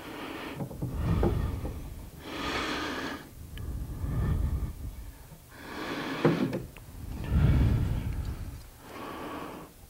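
A man breathing heavily close to the microphone: about six slow breaths, one every second and a half or so. Between them come a few light ticks as a pencil and a metal combination square are set against the wood.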